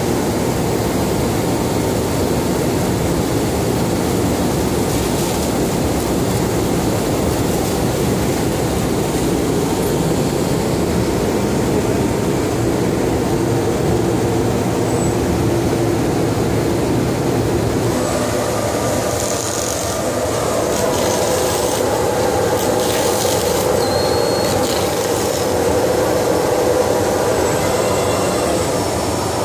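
Bullmer Premiumcut CNC cutting table running as it cuts a film-covered board, with a loud, steady mechanical drone from its vacuum hold-down and moving cutting head. About two-thirds of the way through the sound shifts to a steadier hum.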